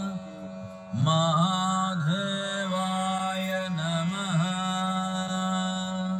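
Devotional mantra chanting set to music: one voice holds a long chanted note with small dips in pitch. It is softer for the first second, then comes in louder.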